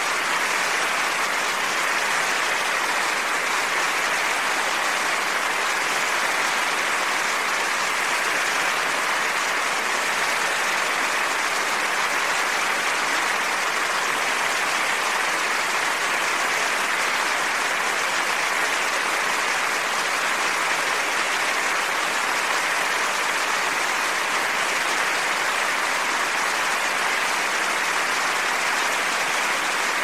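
Large audience applauding: a dense, even wash of clapping at a steady level, with no cheering or whistling.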